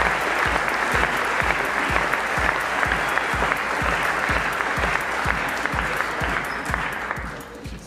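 Audience applauding, with music with a steady beat underneath; the clapping dies away near the end.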